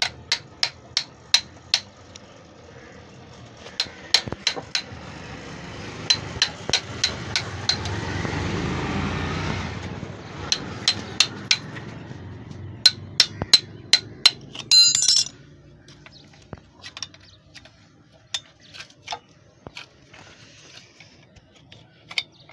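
Hand tools tapping and clinking on the metal of a stopped 4 hp F170 diesel engine as it is worked on: sharp ringing metal strikes in quick runs. A rushing noise swells and fades in the middle, and a short rattle comes about two-thirds through.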